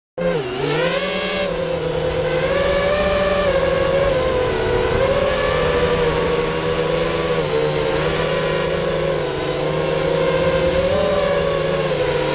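FPV quadcopter's electric motors and propellers whining, heard from the GoPro mounted on the quad. The pitch wavers up and down with the throttle, with a dip and rise just under a second in.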